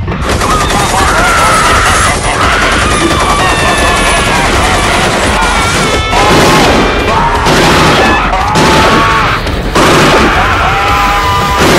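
A loud, dense mix of music and voices with rapid bangs and crashes.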